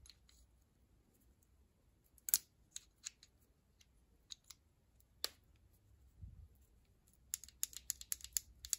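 Small steel parts of a Ford flathead distributor clicking against each other as the shaft, cam and advance-weight plate are handled and fitted together by hand. The clicks are faint and scattered, with a quick run of them near the end.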